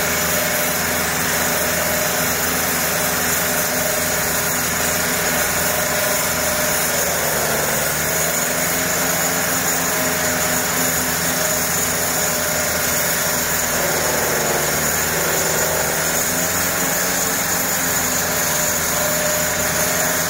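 Walk-behind concrete floor saw running at steady high speed while its water-cooled diamond blade wet-cuts a concrete slab: a constant engine drone with grinding. The pitch sags briefly twice, about 7 and 14 seconds in.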